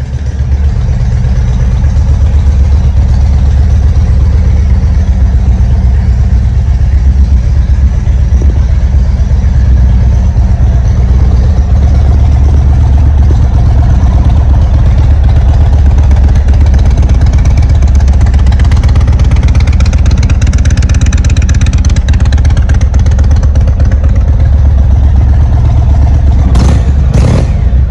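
V-twin engine of an Indian Chieftain Dark Horse motorcycle running at a steady idle, deep and loud, with a few brief knocks near the end.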